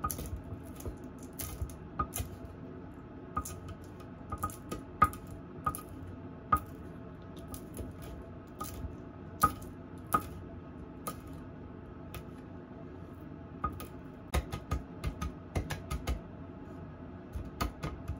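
Kitchen knife chopping on a wooden cutting board: irregular sharp taps, sometimes in quick runs of several strokes, with the busiest runs near the end.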